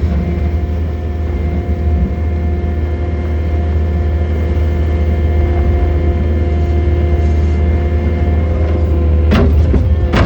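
John Deere 317 skid loader's diesel engine running steadily with a constant drone, and two sharp knocks near the end.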